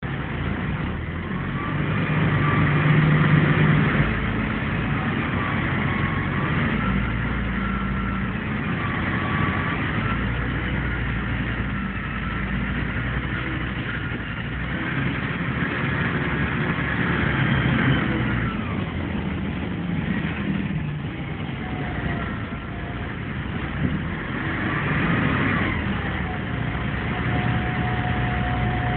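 Scania N113 bus's diesel engine and drivetrain heard from inside the passenger saloon while the bus is on the road, with a whine that rises and falls as it speeds up and slows. Near the end it settles to a steady hum.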